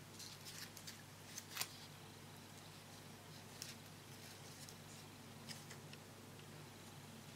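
Faint crisp ticks and crackles of stiff wafer paper being handled, a cluster in the first two seconds with the loudest about one and a half seconds in and a couple more later, over a low steady hum.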